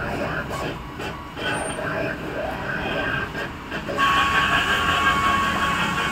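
Steady rumbling noise of a passing vehicle, with a high, steady whine joining about four seconds in.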